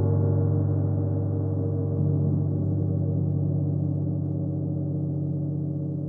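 A 31-inch Chinese white gong ringing with a deep, sustained tone of many overtones after mallet strokes. It swells again about two seconds in, then slowly fades.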